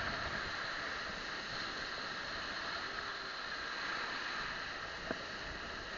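Steady rush and slosh of shallow water, with one short click about five seconds in.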